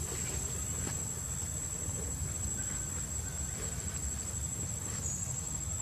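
A steady high-pitched insect drone, held on one tone, over a constant low rumble, with a few faint ticks.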